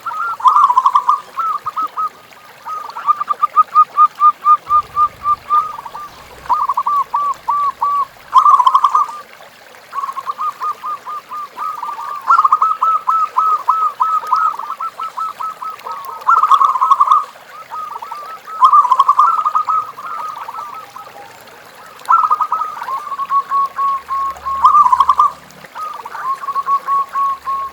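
Zebra dove (perkutut) cooing: rapid rows of short, soft-edged notes, phrase after phrase with only brief pauses between them.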